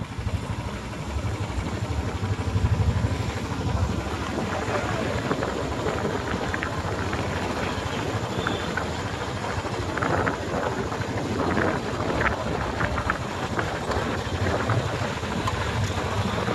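Wind rushing over the microphone with a steady low engine and road rumble from a vehicle riding along a road.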